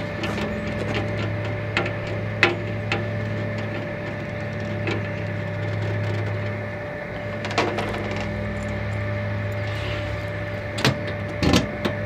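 Hand tools clicking and scraping against a metal RV baggage-compartment latch as its lock nut is tightened: a handful of separate sharp clicks, then a heavier thump about half a second before the end as the compartment door is shut. A steady low hum runs underneath.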